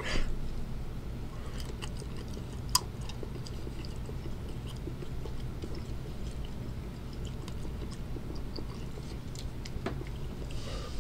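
A person chewing a mouthful of chocolate candy bar topped with scorpion: faint, scattered crunches and mouth sounds, with one sharper click about three seconds in, over a steady low hum.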